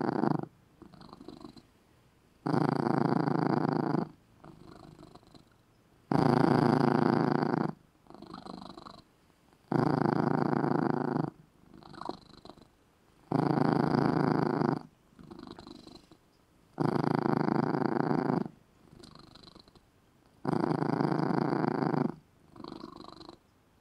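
Domestic cat purring loudly in a steady rhythm: a long loud stretch of about a second and a half, then a softer, shorter one, the pair repeating about every three and a half seconds.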